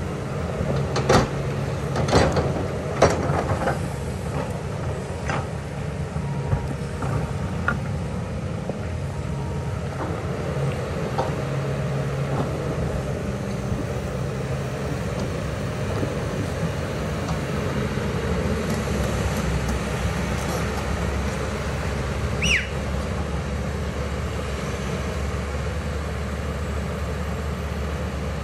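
Kobelco excavator's diesel engine running steadily under working load. A few sharp knocks sound in the first few seconds, and a short falling squeal comes about three quarters of the way through.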